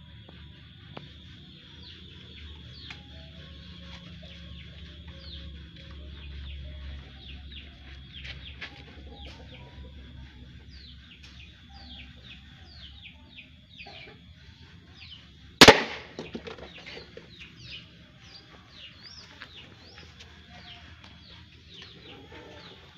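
A single sharp shot from an air-powered fish spear gun (paser ikan) comes about two-thirds of the way through, with a brief tail after it. Small birds chirp throughout in quick, falling notes.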